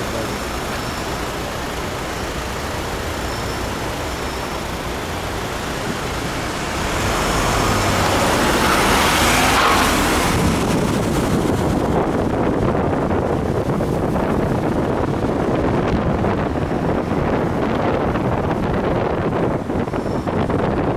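City street traffic: cars driving past close by over a steady hum of road noise, with one vehicle passing louder and brighter about eight to ten seconds in.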